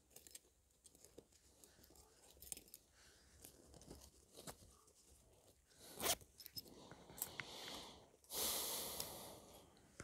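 Camping gear being handled and packed away: faint clicks and rustles, a sharp click about six seconds in, then a rasping fastener pull lasting about a second near the end.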